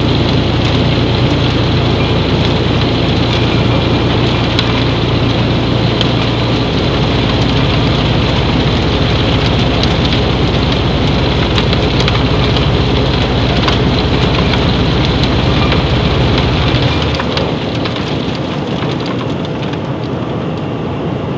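Vibrafloor vibrating silo-floor reclaimer running under a load of crystal potash: a low machine hum under a steady hiss of granules moving. The lowest part of the hum stops about three-quarters of the way through, and the sound drops a little in level.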